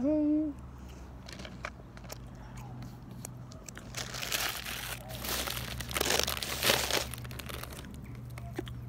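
Plastic snack packet crinkling as a hand rummages in it, in a run of rustles from about halfway through, loudest near the end. A short hummed vocal sound opens it.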